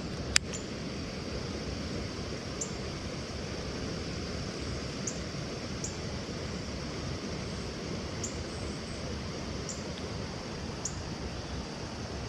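Steady outdoor noise of wind and flowing river water, with one sharp click about half a second in and faint short high chirps every second or two.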